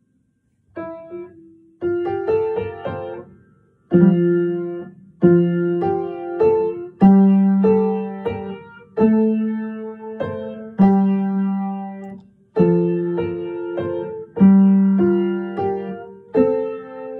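Upright acoustic piano playing a harmonized melody in block chords, each chord struck and left to fade before the next, about one every one to two seconds. It opens with a single note after a moment of quiet and a couple of short pauses before the chords run on steadily.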